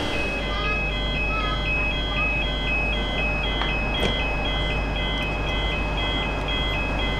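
Electronic warning beeps alternating between two high pitches, several a second, sounding over the steady low hum of a Metro Trains Melbourne X'trapolis 100 electric train standing at the platform. A single short click about four seconds in.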